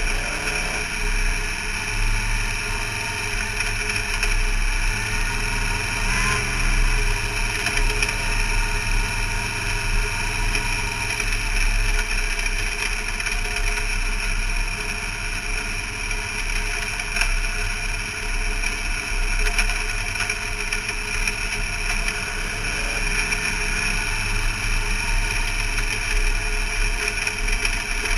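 Race car's engine running steadily with little change in pitch, heard from inside the roll-caged cockpit.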